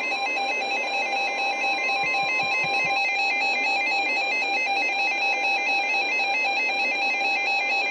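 Weather radio alert alarm: electronic beeps warbling back and forth between two pitches. For the first three seconds or so a steady long tone, the Weather Service's warning alert tone, sounds under it. The alarm signals an incoming warning broadcast, here a flash flood warning.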